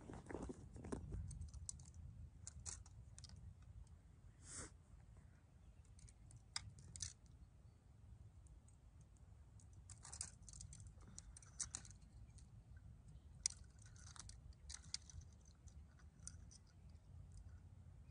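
Faint, scattered clicks and rustles of fishing gear being handled, from a backpack and fishing rods, over a low steady rumble. The sharpest clicks come about four and a half seconds in and near the middle.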